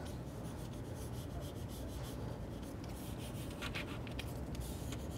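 Fingers rubbing over a protective screen overlay, pressing it back down flat onto a monitor's screen: a faint, soft scratchy rubbing made of many small quick strokes.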